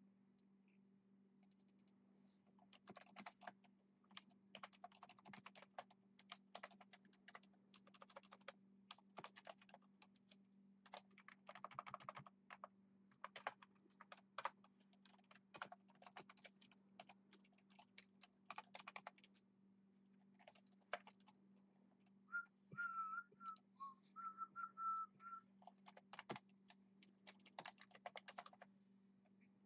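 Typing on a computer keyboard: runs of quick key clicks with short pauses between them. About three-quarters of the way through, a person whistles a few high notes for a few seconds between keystrokes.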